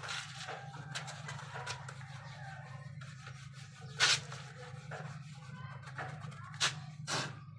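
Cloth rag rubbing and wiping over motorcycle bodywork and engine parts in several brisk swipes, the loudest about four seconds in, over a steady low hum.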